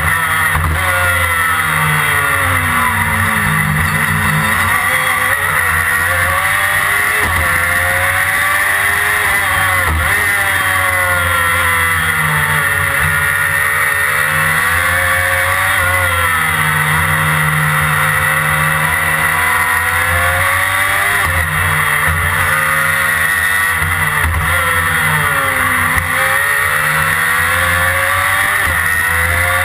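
Onboard sound of a Formula Predator's single-seater's 600cc motorcycle engine under racing load. The engine note falls and climbs again several times as the car slows into corners and accelerates out, with a constant rush of noise over it.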